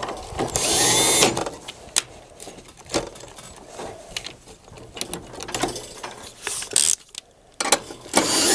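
Small electric screwdriver running in two short whirring bursts, one about half a second in and one near the end, as it drives the P-clamp screws home on the dehumidifier's wiring harness. Light clicks of the bit and screws come between the bursts.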